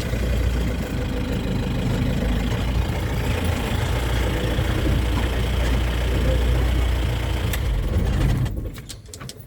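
Vehicle engine running with a steady low rumble, falling away about eight and a half seconds in.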